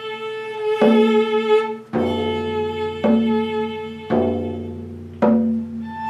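Viola and a set of four drums playing together. Sustained viola notes are renewed by a sharp attack about once a second.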